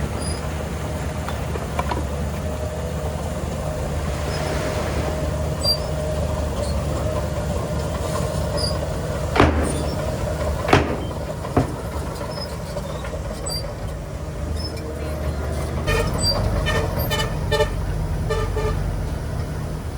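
Heavy earthmoving machinery's diesel engine running steadily, with three sharp metallic knocks a little past the middle and a run of short pitched beeps near the end.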